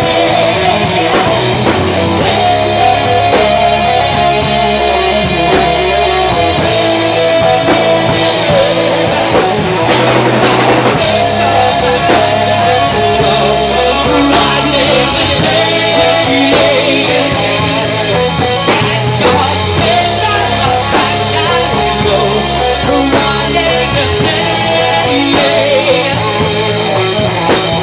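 Rock band playing live: a woman sings into a handheld microphone over electric guitar and drum kit, the whole band loud and dense.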